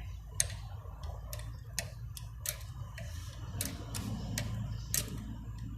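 Irregular light metallic clicks of a hand tool working the small air-bleed screw on a motorcycle's two-stroke oil pump as it is tightened, about two or three clicks a second, over a low steady hum.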